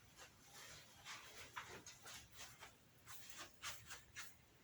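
Faint, irregular scratching and rustling: short noisy scrapes, two or three a second.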